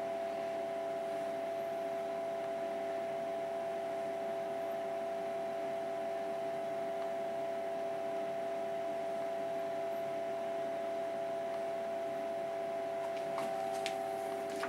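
Steady electrical hum with a few fixed tones over a background hiss, and a few light clicks near the end.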